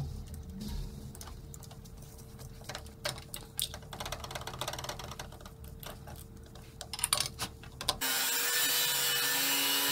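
Light clicking of a hand wrench working the handlebar clamp bolts on a motorcycle's chrome risers. About eight seconds in, an angle grinder with a thin cutting disc starts cutting through a stainless-steel handlebar tube, much louder.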